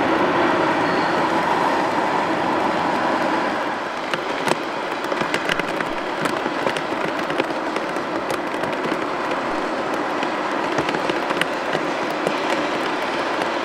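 Boeing 777 jet engine noise: a loud, steady rush from an airliner on the runway, easing a little about four seconds in to the steady rumble of a 777 on approach. From then on, many irregular sharp crackles are scattered over the rumble.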